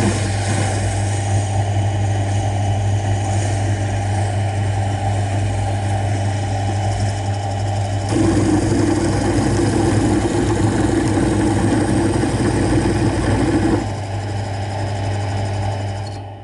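Bench drill press motor running with a steady hum while its bit cuts a slot in a wooden board slid along a fence. The cutting grows louder and rougher for about six seconds past the middle, then eases, and the motor cuts off at the very end.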